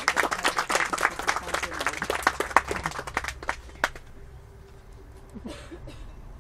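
Audience clapping, dense and lively at first, thinning out and dying away about four seconds in.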